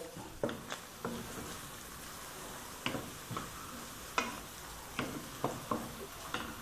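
Ground pork and onion sizzling in a metal wok while a wooden spatula stirs them, the spatula scraping and knocking against the pan about ten times at uneven intervals.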